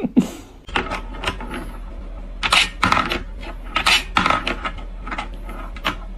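Irregular metallic clicks and rattles from a wood-and-wire desk toy as a cat paws at its cup and track.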